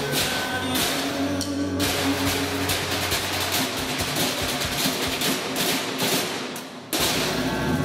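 Percussion ensemble beating galvanized metal trash cans with wooden sticks in a fast, dense rhythm. The hits thin out and fade just before the end, then all come back in together.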